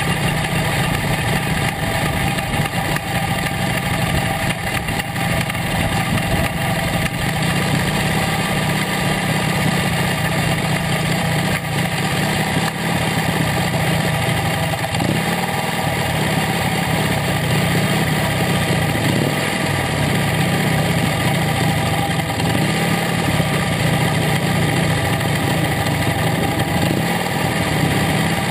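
1926 Excelsior Super X's 45 cubic-inch V-twin engine running steadily at low revs, heard close up from the bike as it rolls slowly.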